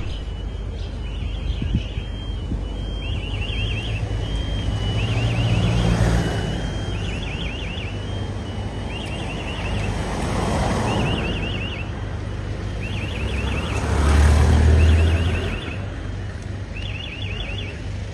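Road traffic: vehicles pass by about three times over a steady low rumble. Through it, a short high warbling chirp repeats every second or two.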